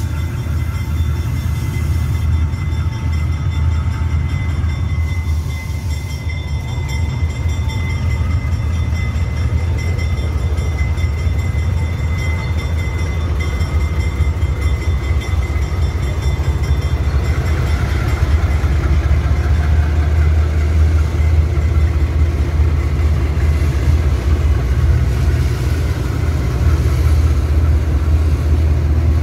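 Two GE U20C diesel-electric locomotives hauling a loaded cement tank train past at low speed, their engines running with a deep steady drone. The drone grows louder in the second half as the locomotives come close. A thin high whine sits above it through the first half.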